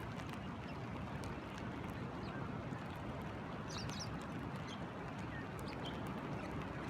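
Steady rush of creek water with light rain pattering, and a few short, high bird chirps near the middle.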